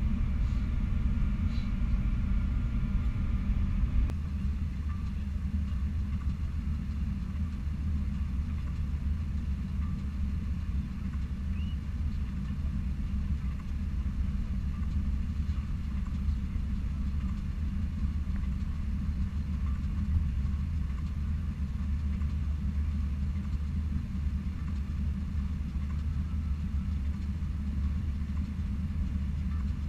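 Boeing 787-9 cabin noise, a steady low rumble, first during the descent. About four seconds in it changes abruptly to the quieter rumble of the airliner taxiing on the ground.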